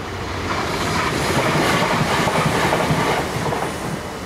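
A passenger train passing over the level crossing: wheel and rail noise swells to a peak about two seconds in and fades away near the end.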